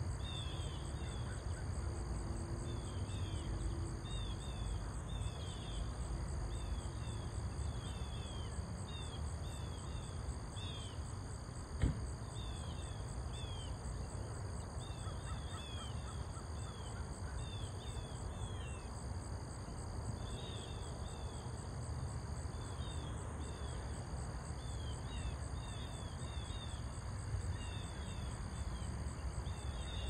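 Nature ambience: birds chirping over and over in short falling calls, coming in bunches, over a steady, high, pulsing insect chorus and a low rumble. A single sharp click about twelve seconds in.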